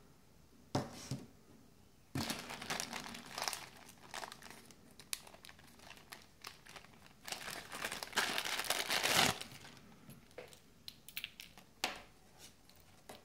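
Small zip-lock plastic bag being pulled open and handled, its thin plastic crinkling in irregular bursts, loudest about eight to nine seconds in.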